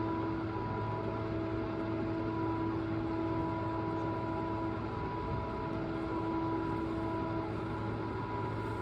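A small motor running steadily: a constant hum with several steady tones over a hiss.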